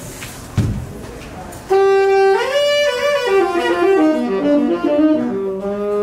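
Solo saxophone, live: about two seconds in a loud sustained note comes in, bends upward, falls through a short run of notes and settles on a long held note. A single low thump sounds less than a second in, before the saxophone enters.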